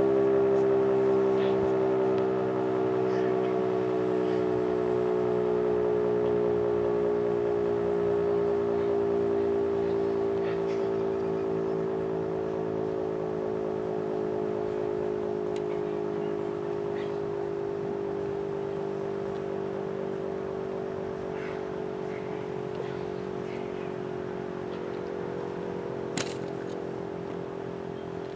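Federal Signal Model 5 tornado siren sounding the Alert signal, a steady wail. Its pitch sinks a little and it slowly grows quieter. A short tick comes near the end.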